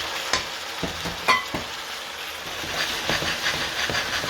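Chicken and vegetables sizzling in a hot frying pan as they are stirred, with a utensil knocking against the pan a couple of times and then scraping quickly across it near the end.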